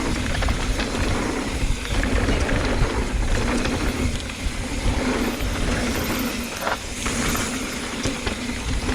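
A mountain bike rolling fast down a dirt jump trail: steady wind rush on the microphone over the rumble of knobby tyres on dirt, with a few light clicks and rattles from the bike.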